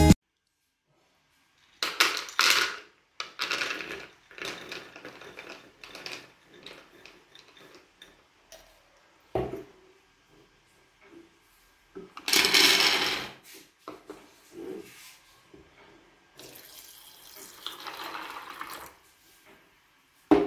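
Dry almonds rattling as they are poured and handled in a plastic measuring cup, then clattering into a pot about halfway through. Near the end, water is poured over them from a glass, splashing into the pot to soak the nuts.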